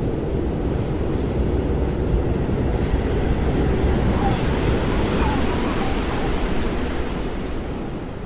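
Steady wind rushing and buffeting over a camera microphone, with a rumbling low end and a few faint wavering tones about halfway through.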